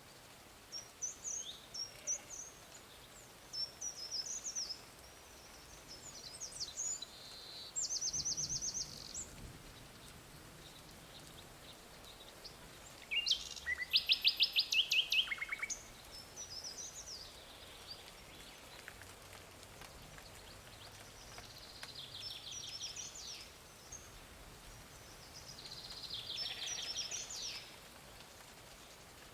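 Songbirds singing outdoors: scattered phrases of high chirps and fast trills over a steady faint background hiss, with the loudest rapid trill about halfway through and another near the end.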